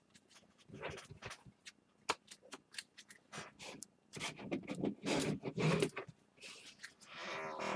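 Trading cards being handled and sorted by hand: scattered clicks, taps and rustles of card stock, with a few longer rustling stretches in the second half.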